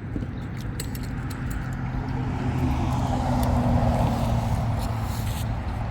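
A car driving past on the road, its engine and tyre noise growing louder to a peak about halfway through and then fading.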